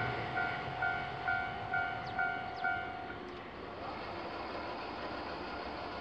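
Japanese level-crossing electronic warning bell ringing at about two strokes a second, then stopping about three seconds in as the crossing clears, over a steady rail-traffic noise.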